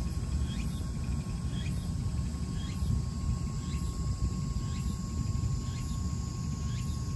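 Faint insect chirps repeating about once a second over a steady low rumble and a thin steady hum.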